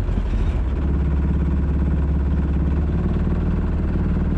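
Sailboat's engine opened up to full throttle: its drone rises in pitch and gets a little louder within the first second, then runs steady at the higher revs.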